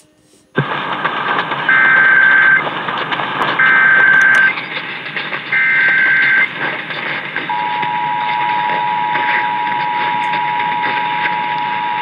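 Emergency Alert System monthly test heard over AM radio, with a steady hiss underneath. The station comes in about half a second in, and three data-header bursts follow, each about a second long and about a second apart. From about seven seconds in, the steady two-tone attention signal sounds.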